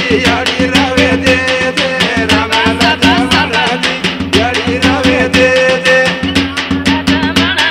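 Banjara lengi folk song: women's voices singing together over a dapda frame drum beaten in a fast, steady rhythm.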